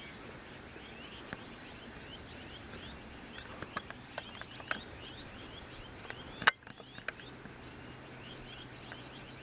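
Birds chirping faintly in quick, short, high, falling chirps, with a single sharp click about six and a half seconds in.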